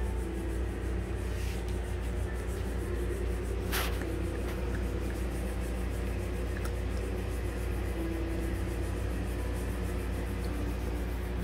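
A small dog gnawing and chewing a chew stick, with one sharp crunch about four seconds in and a few faint clicks, over a steady low hum.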